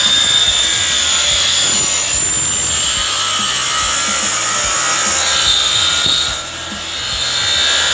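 Hand scraper dragged back and forth over the floor, spreading contact adhesive for vinyl sheet flooring: a steady rasping scrape that eases briefly about six and a half seconds in.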